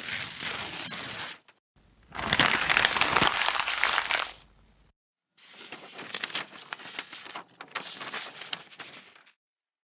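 Three separate clips of crackly, crinkling noise played one after another, with short gaps of silence between them; the middle one is the loudest.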